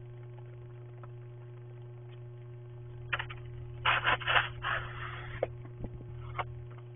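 Snow shovel scraping and crunching through packed snow in a few rough strokes, starting about three seconds in, with a longer scrape just before the end. A steady low hum runs underneath.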